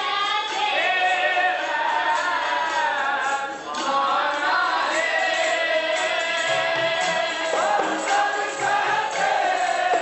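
Sikh kirtan: a woman singing a hymn in long, gliding held notes, with other voices singing together and harmonium accompaniment.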